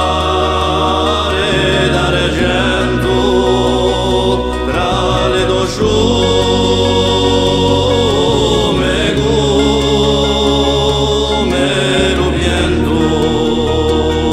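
Music track with a wavering sung melody over a steady low bass.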